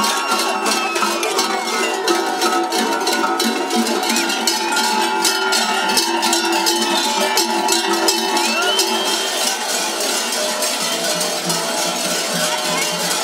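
Many large metal bells tied at the waists of fur-costumed mummers jangling and clanking together as the dancers move, a dense, unbroken clamour of ringing bells.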